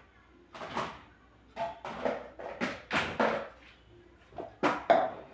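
Kitchen objects being handled and set down: a run of about nine short knocks and clinks, some ringing briefly, with a cluster near the end.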